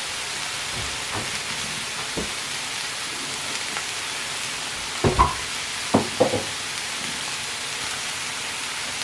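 Sausages, peppers and onions sizzling in a pan with a steady hiss. A few sharp clanks of a utensil against the pan come between about five and six and a half seconds in.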